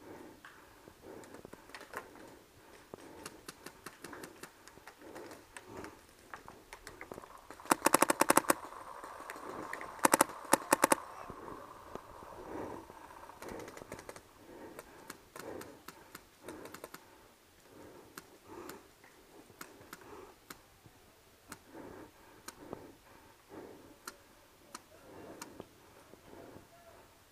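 Paintball marker firing two rapid strings of shots, about eight seconds in and again about two seconds later, with scattered single pops of other markers firing across the field throughout.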